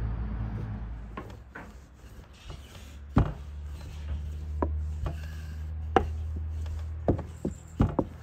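Knife cutting food on a wooden board: irregular sharp knocks, roughly one a second, with rubbing between them, over a low steady hum.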